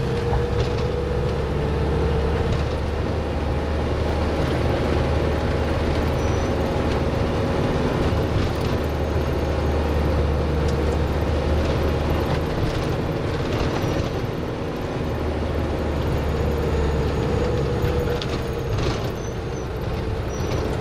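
Minibus engine and road noise heard from inside the cabin while driving, a steady low drone with a faint whine over it. It eases off briefly about two-thirds of the way through and then picks up again.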